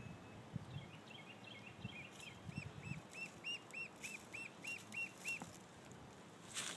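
A duckling peeping: a run of short high chirps, each rising and falling, irregular at first and then steady at about four a second, stopping a little past five seconds in. It is a lone duckling, separated from its brood, calling for the others. A short burst of noise near the end.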